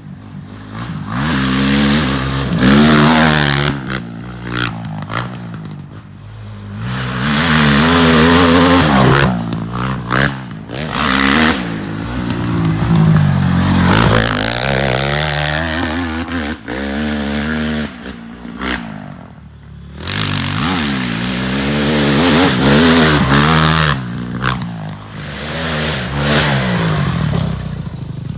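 Honda CRF450R single-cylinder four-stroke engine on a three-wheeler conversion being ridden hard. It revs up and down over and over as the throttle opens and closes, with a few brief quieter spells off the throttle.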